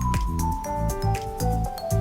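Background music with a steady beat, a low drum hit about twice a second under a melody that steps downward.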